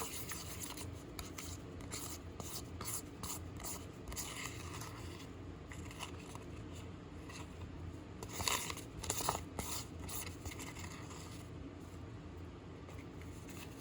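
A spoon or spatula scraping runny cake batter around a bowl and dish in short strokes, a few louder scrapes near the middle.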